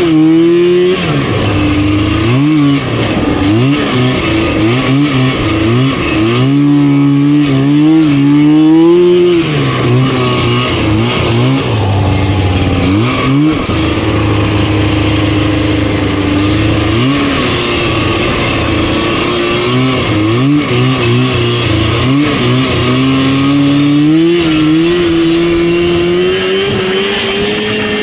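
Rotax 503 two-stroke twin engine of a Lynx snowmobile running under load, its revs repeatedly climbing and dropping as the throttle is worked, with steadier stretches in the middle and a long rise in revs near the end.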